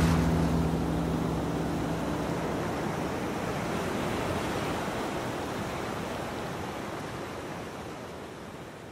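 Steady rushing wash of waves that fades slowly away. A deep, sustained low drone dies out in the first two seconds or so.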